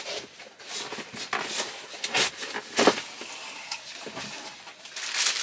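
Irregular rustling, scraping and soft knocks of a cardboard box and its packaging being handled and rummaged through as it is unpacked.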